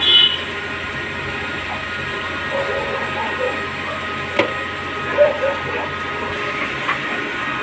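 CNC lathe running: the spindle turns an extruded rod while a parting and grooving tool cuts an O-ring groove under a coolant spray, a steady machine hum with several whining tones over a hiss. A few brief sharper cutting sounds stand out, the clearest a click about four and a half seconds in.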